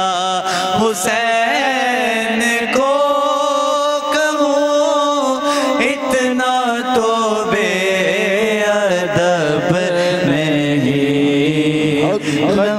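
A man singing a naat, an Urdu devotional song, solo into a handheld microphone, in long held notes that waver and glide with ornaments.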